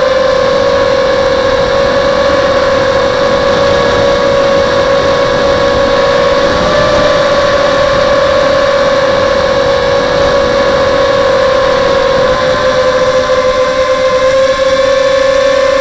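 Electric motors and propellers of a small FPV racing quadcopter (SunnySky X2204 2300KV brushless motors spinning 5x3 props) whining steadily at cruise throttle in flight, with only slight wavers in pitch.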